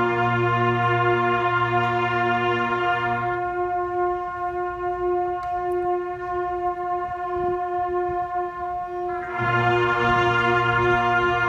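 Marching band brass section holding long sustained warm-up chords. The lowest notes of the chord drop out about three seconds in while the upper horns keep holding, and the full chord with its bass comes back near the end.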